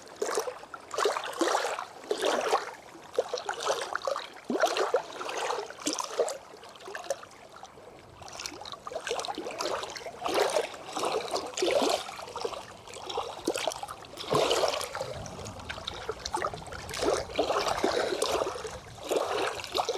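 Small waves lapping and splashing against a rocky lakeshore in shallow water, in irregular surges every second or so.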